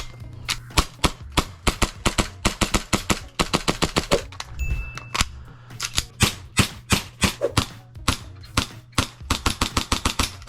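Airsoft pistol firing shot after shot in quick, uneven succession: sharp cracks, some bunched into fast strings. A steady low hum runs underneath.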